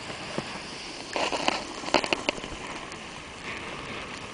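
Snowboard sliding and scraping through loose snow: a steady hiss with a few sharper crunching scrapes about one and two seconds in.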